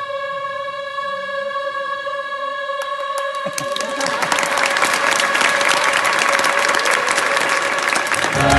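A massed gospel choir holds a long sustained final chord, and about three seconds in applause breaks out from the audience and builds, growing louder toward the end while the chord still rings.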